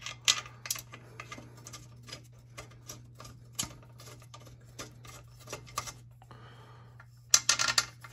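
Engine-mount bolts being fitted by hand through the motorcycle frame and engine plates: scattered light metal clicks and taps, a brief scrape about six seconds in, and a quick flurry of clicks near the end, the loudest part.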